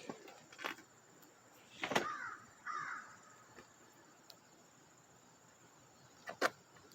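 Two short harsh bird calls about two seconds in, with a few scattered knocks before and after.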